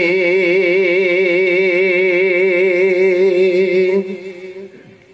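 A man singing a naat solo into a microphone. He draws out the last syllable of a line as one long held note with a wavering vibrato, breaks off about four seconds in, and the sound fades away.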